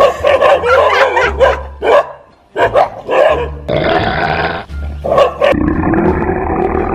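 Dogs barking and growling in quick bursts as a dog lunges at and bites a stuffed toy tiger, with two longer growls in the second half. Music with a low bass beat plays underneath.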